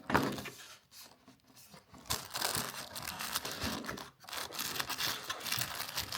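Paper and cardboard packaging being torn open and crinkled by hand as an advent calendar door and the little package behind it are opened. It starts suddenly, pauses briefly about a second in and again around four seconds, and crackles almost continuously in between.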